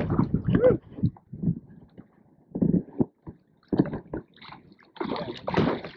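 Water splashing and sloshing in irregular bursts at the side of a kayak, churned by a large roosterfish held at the surface on the line.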